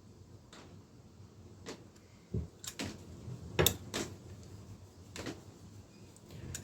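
Metal spanners clicking and knocking against a bicycle pedal's axle lock nuts, a scattering of sharp clicks with the loudest two about three and a half and four seconds in.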